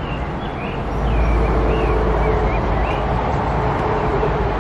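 Open-air rumble that swells about a second in, with a steady hum under it and a bird singing short, wavering phrases over the top.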